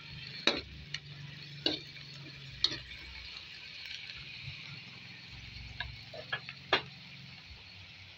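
Eggplant, green chilies and dried anchovies sizzling steadily in a hot frying pan, with about six sharp knocks of a spatula against the pan as the vegetables are stirred.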